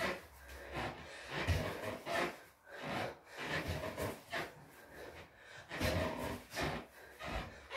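A person breathing hard in quick, noisy puffs, in time with repeated crunches, with clothing rubbing and shifting on a foam exercise mat. The puffs come irregularly, about one to two a second.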